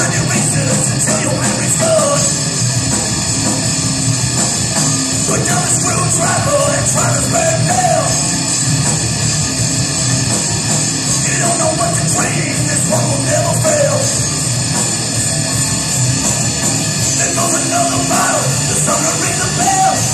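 Rock band playing live and loud, with electric guitars and drums, heard from the audience. A singer's vocal lines come in over the band several times.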